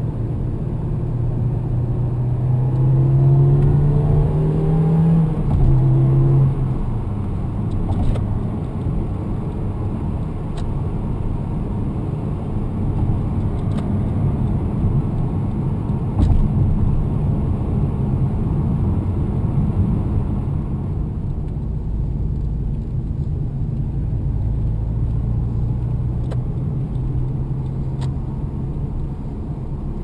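A Toyota Corolla T-Sport Compressor's supercharged four-cylinder engine heard from inside the cabin. It rises in pitch as the car accelerates, drops at a gear change about five seconds in, then rises again, before settling into a steady run at cruising speed with road noise.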